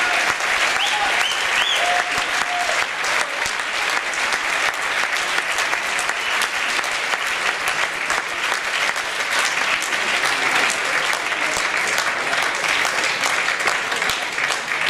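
Concert hall audience applauding steadily, with a couple of voices calling out in the first few seconds.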